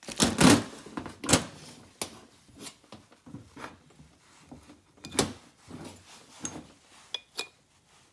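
Scattered metal clunks and clicks of hand tools on a motorcycle cylinder head: a valve spring compressor being released, lifted off and fitted to the next valve, and a small hammer being handled. The loudest knocks come near the start and about five seconds in, with sharper clicks near the end.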